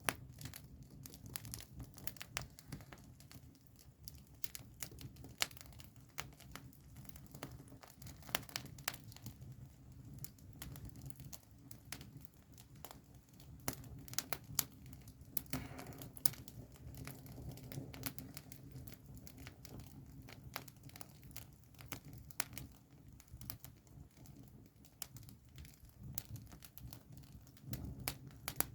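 Wood campfire crackling, with frequent irregular sharp pops and snaps.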